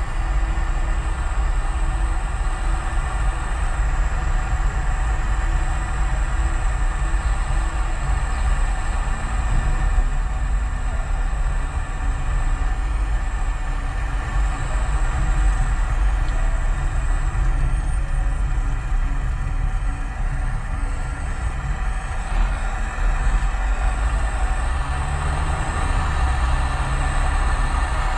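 Car interior noise while driving: a steady low rumble of the engine and tyres on the road, heard from inside the cabin.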